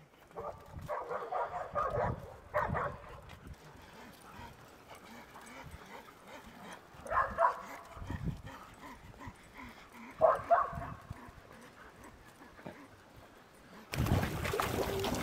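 Dogs barking and yipping in short, scattered calls. Near the end a sudden rush of splashing water as dogs swim in a pool.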